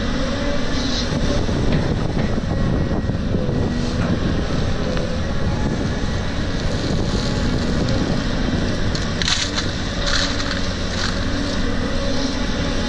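Caterpillar 320D hydraulic excavator's diesel engine running steadily under load as it digs and swings. Near the end come a few short clattering bursts of dirt and stones.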